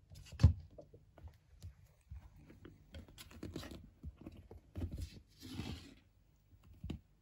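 Four-week-old kittens scuffling and pawing at each other on a quilted blanket: irregular soft scratches, rustles and knocks, with one louder thump about half a second in.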